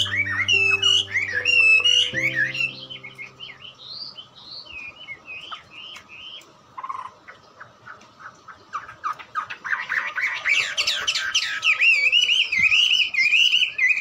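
Songbirds chirping and twittering in quick, rising and falling calls, quieter in the middle and building into dense, continuous chatter from about ten seconds in. A few held low music notes sound under the birds at the start and stop after about two seconds.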